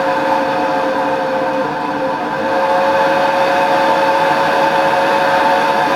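Propane-and-air burner flame roaring steadily in a drilled pipe, with a steady whistle on top that dips slightly about two seconds in. The whistle could be the flame going through the holes in the pipe.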